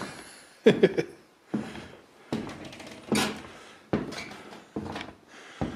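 Footsteps at an even walking pace, seven or eight footfalls, each a sudden knock that fades quickly.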